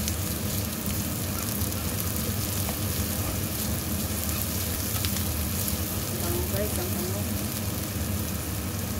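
Chopped onion, garlic, ginger and green chili frying in oil in a pan: a steady sizzle as they are stirred with a wooden spatula, with a few faint clicks of the spatula against the pan.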